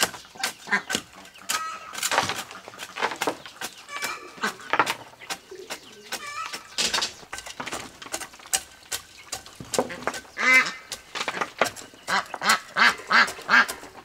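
Ducks quacking: one loud quack about ten and a half seconds in and a quick run of quacks near the end. Under them, a long-handled spade repeatedly strikes and scrapes into dry, loose soil in a wooden planter box.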